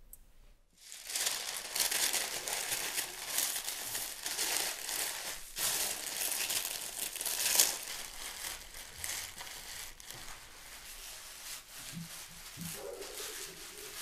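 Aluminium foil crinkling and crumpling as it is folded and pressed around pieces of beef. The dense rustle starts about a second in, with sharper crackles scattered through it.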